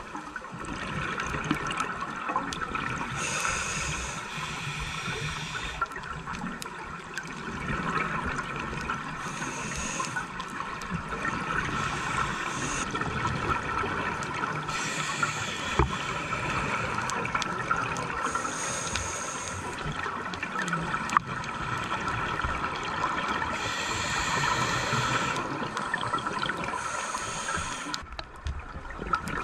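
Underwater sound of a scuba diver breathing through a regulator: a bubbly exhalation burst every five or six seconds over a steady underwater hiss.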